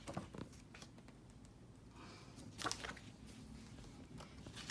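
Faint paper rustling and handling noise as a large picture-book page is turned, with a brief louder rustle about two and a half seconds in.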